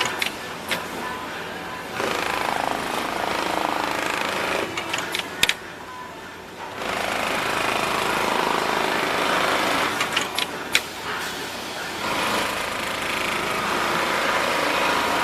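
Mitsubishi PLK-G6030 programmable industrial pattern sewing machine stitching fast in long runs. Sharp clicks come between runs, and there is a short lull about halfway through.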